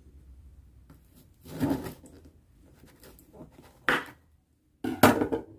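Crisp baked puff pastry crackling as it is broken open by hand, in a few short crunchy bursts.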